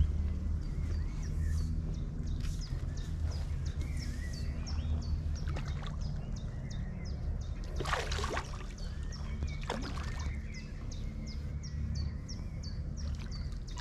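A hooked carp splashing at the surface twice as it is drawn over the landing net, about eight and ten seconds in. Under it a steady low rumble and a bird chirping repeatedly.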